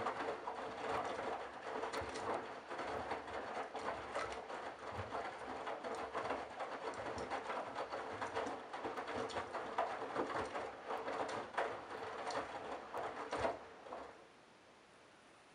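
Candy Bianca washing machine drum tumbling a wet load of towels: a steady motor hum under a dense, irregular patter of laundry and water splashing in the drum. It stops near the end as the drum comes to rest.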